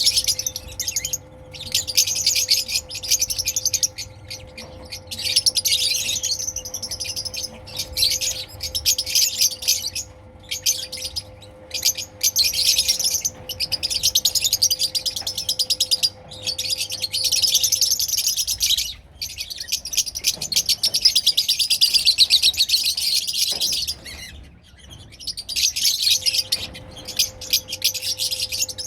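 Small parrots chattering in fast, high, continuous chirps, in runs broken by short pauses, over a faint steady hum.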